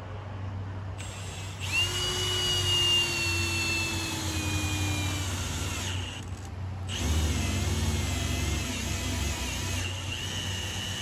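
Cordless drill boring a hole through plywood, on a nearly flat battery. Its motor whine sinks slowly in pitch as it works, stops briefly past the middle, then starts again on a lower, pulsing note.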